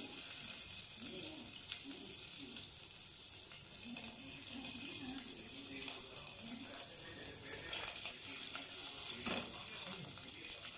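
Curry leaves and mustard seeds sizzling steadily in hot coconut oil in a pot, with a few faint clicks.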